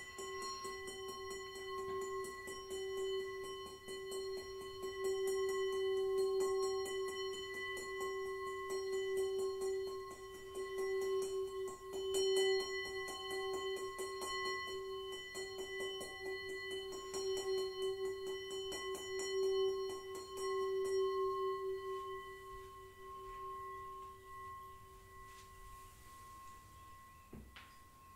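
Himalayan singing bowl kept sounding, a steady low hum with a stack of higher ringing overtones that swell and fade in slow waves. About twenty seconds in, the playing stops and the tone dies away, with a faint click near the end.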